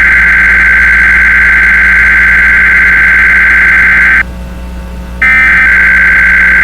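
Emergency Alert System SAME header: loud, harsh buzzing digital data bursts. The burst stops about four seconds in and the next one starts about a second later.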